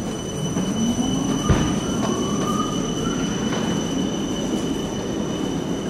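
A Siemens Combino low-floor tram pulls away on street track, its drive whine rising in pitch as it speeds up, over wheel-on-rail rumble. A sharp thump comes about one and a half seconds in, and a steady high squeal runs over the top.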